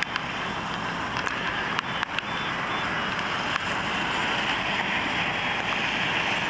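Steady road noise of passing traffic, swelling slightly partway through, with a few light clicks near the start and about two seconds in.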